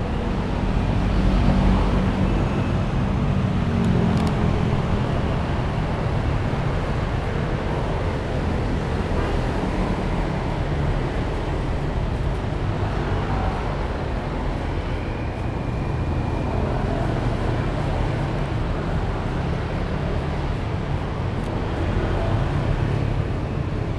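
Steady street traffic: motorbikes and cars passing on the road, with a continuous low rumble.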